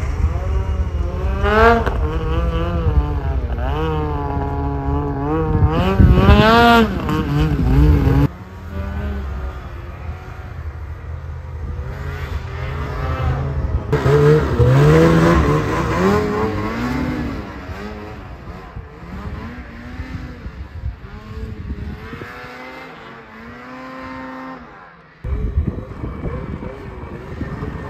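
Mountain snowmobile engines revving in deep snow, the pitch climbing and dropping again and again, with the loudest rev a little before the middle. The sound breaks off abruptly a few times, and there is a quieter stretch near the end before another engine comes back in.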